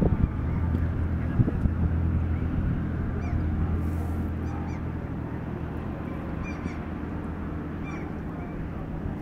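Harbour ferry's engine droning steadily, slowly fading, with short bird calls repeating over it.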